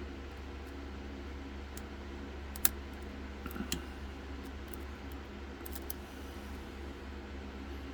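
Lock pick and tension wrench working the pins of an Era pin-tumbler lock: a few small, sharp metallic clicks, the loudest a little over two and a half seconds in and a short cluster about a second later, over a steady low hum.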